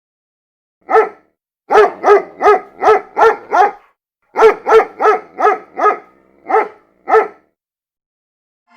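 A dog barking about fourteen times in quick runs. There is a single bark first, then a run of six, then five, then two more spaced out, with dead silence around them as in a clipped sound effect.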